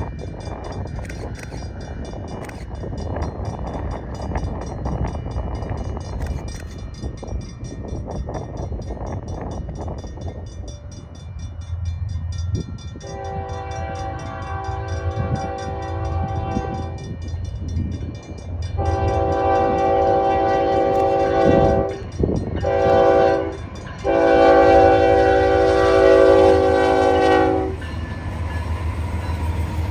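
Diesel freight locomotive horn sounding the grade-crossing signal: two long blasts, a short one, then a long one. Under the horn is the low rumble of the approaching CN diesel locomotives, which pass close by near the end.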